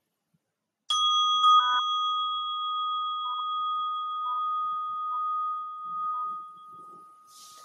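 Meditation bell struck once about a second in, ringing a clear high tone that slowly fades over about six seconds, marking the end of a minute of silent meditation.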